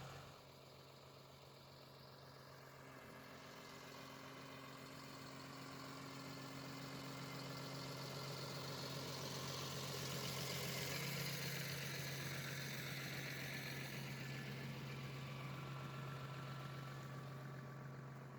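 A Ponsse forestry machine's diesel engine running steadily at an even pitch. It grows louder toward the middle, then eases off a little.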